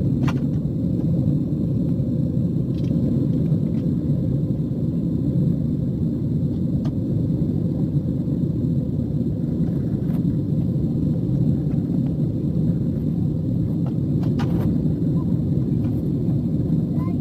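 Steady low rumble inside an airliner cabin during the climb after takeoff: engine and airflow noise heard through the fuselage, with a couple of faint clicks.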